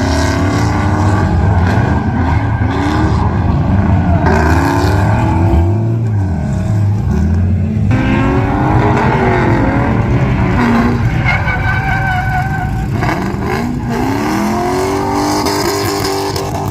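Drift car's engine revving up and down over and over as the car slides through its run, with some tire squeal.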